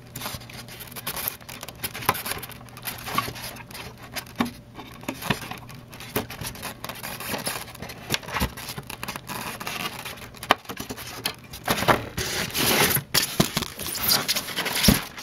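Hands untwisting wire twist ties and scraping and rubbing against styrofoam packing: scattered clicks and scratchy scrapes, busier near the end as the styrofoam is handled.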